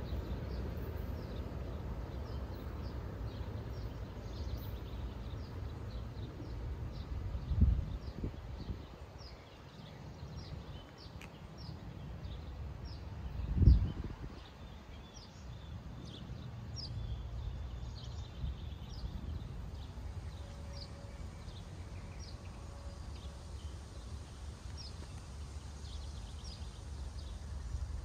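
Outdoor ambience while waiting for a train: a steady low rumble under short, high chirps repeating about twice a second. Two brief dull thumps stand out, one about a quarter of the way in and a louder one about halfway through.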